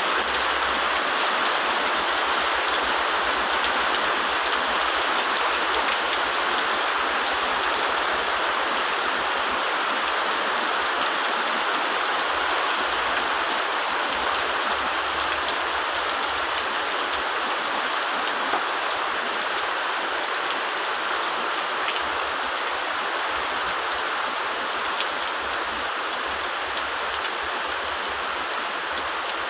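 Heavy rain falling steadily: a dense, even hiss with occasional sharper drop ticks, easing off slightly toward the end.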